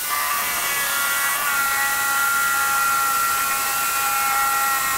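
Parkside cordless angle drill starting abruptly and running steadily with a motor whine as a 10 mm bit bores into softwood timber. The drill is too underpowered for the bit: it is burning a hole in the wood rather than cutting through.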